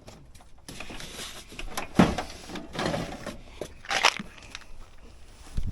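Irregular knocks and rustling handling noises, with the sharpest knock about two seconds in and several more near the end.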